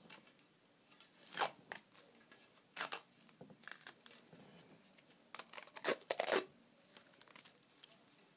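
Hockey grip tape being pulled off the roll and wound onto the knob of a stick, in short ripping pulls: one about a second and a half in, another near three seconds, and a quick run of them around six seconds.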